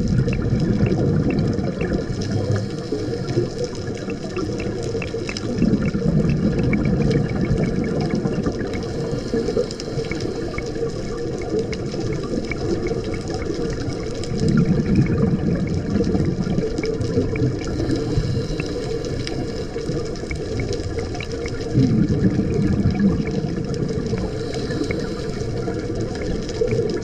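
Underwater sound through the housing of a diver's GoPro: a steady watery hiss. About every eight seconds, four times, a low bubbling rumble swells up, typical of a scuba diver's exhaled bubbles.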